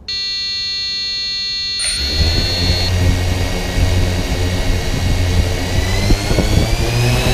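A steady electronic tone for about the first two seconds, then a drone's electric motors and propellers start and run at idle on the ground, a whine with a low hum that edges slowly up in pitch.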